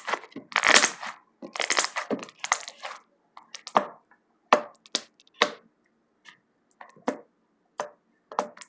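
Slime being squeezed and pressed by hand: thick crackling and popping for the first few seconds, then separate sharp pops now and then.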